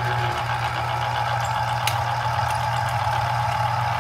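Electric citrus juicer's motor running steadily as an orange half is pressed down onto its spinning reamer: an even hum, with a brief tick about two seconds in.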